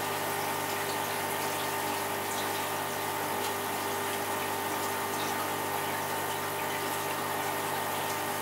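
Aquarium pump running steadily: a constant hum with a few steady tones over the hiss of moving water.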